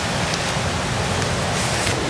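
Steady rush of a waterfall and its river. A brief rustle near the end.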